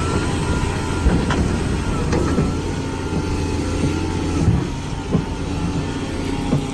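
Heavy machine's diesel engine running steadily, with several sharp knocks and clanks scattered through.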